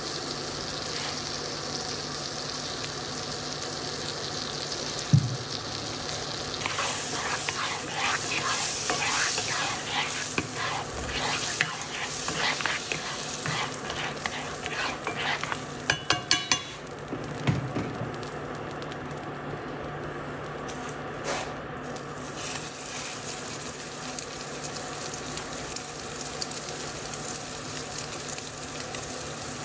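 Butter and grapeseed oil sizzling in a cast-iron skillet. A spatula scrapes and stirs through the pan from about seven seconds in, ending in a quick run of clicks against the pan around sixteen seconds. Then the frying settles back to a steady sizzle.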